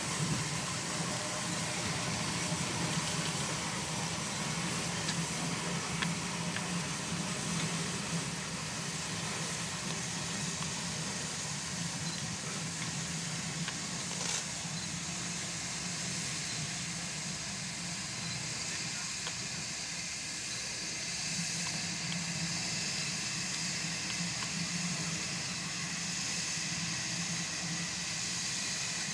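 Dübs crane tank steam locomotive moving slowly along the line, giving off a steady hiss of steam.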